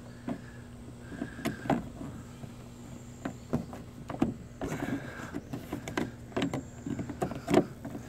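Plastic interior trim on a hatchback's rear hatch being pushed and snapped into place by hand: a series of short plastic clicks and knocks, sparse at first and busier from about halfway through.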